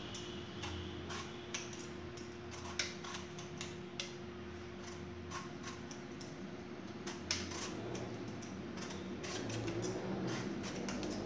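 Metal vegetable peeler scraping the skin off a raw green mango: short, irregular scrapes and light clicks, some strokes sharper than others, over a faint steady hum.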